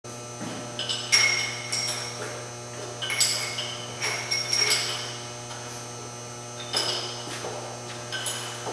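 Metal tools striking and clinking on the metal parts of a Bridgeport milling machine during disassembly: groups of sharp, ringing taps, a few at a time, over a steady low hum.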